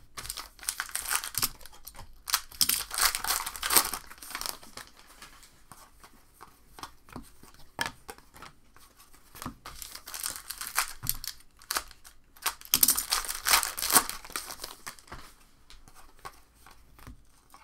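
Foil trading card pack wrappers torn open and crinkled in two bouts, one near the start and one about two-thirds of the way through, with short clicks and rustles of handled cards between.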